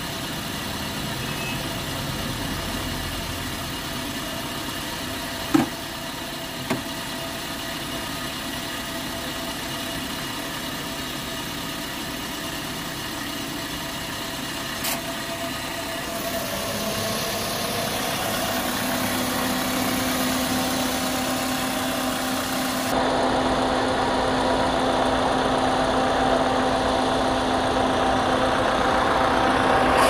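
Maruti Swift petrol engine idling steadily, with two sharp clicks about five and a half and nearly seven seconds in. From about seventeen seconds a further steady hum joins in and the running grows a little louder.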